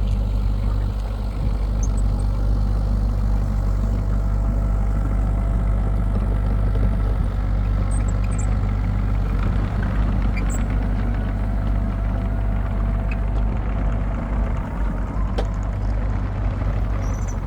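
Excavator's diesel engine running steadily at constant speed, with a few faint clicks over it.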